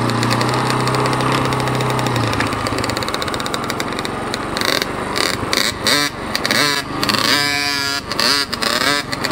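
Dirt bike engine heard from the handlebars as the bike rides off: a steady note for the first two seconds, then the revs rising and falling several times in the second half.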